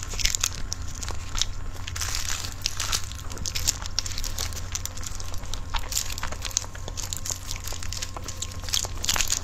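Close-miked eating of a soft cream-filled sponge cake: bites, chewing, and many quick wet mouth clicks and smacks, with no pause.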